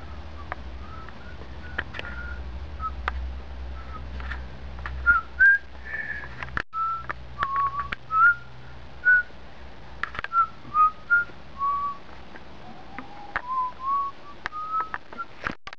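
A series of short whistled notes, each a clear tone at a different pitch, getting louder and more frequent from about five seconds in. Scattered clicks and knocks run through it.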